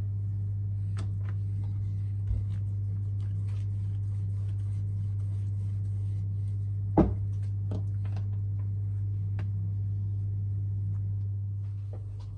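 Wooden rolling pin rolling out a sheet of dough on a counter, with light taps and handling clicks and one sharper knock about seven seconds in, all over a steady low hum.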